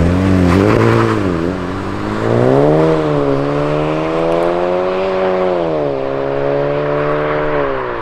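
Volkswagen Golf GTI's turbocharged four-cylinder engine on its stock exhaust, revving: the pitch climbs, dips about a second and a half in, climbs again and is held fairly steady for several seconds, then falls away near the end.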